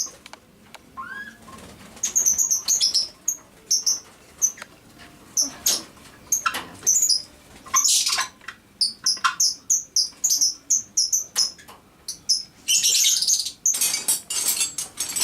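Small birds chirping repeatedly in short, high, rapid chirps. Occasional sharp knocks come through a few seconds in, and a scraping noise rises near the end.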